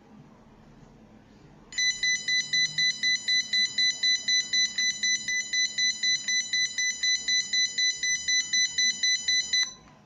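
Piezo buzzer of an FPGA-driven anti-theft alarm sounding rapid high-pitched beeps, about four a second, triggered because the guarded object has been lifted off its sensor. It starts suddenly a couple of seconds in and cuts off abruptly near the end.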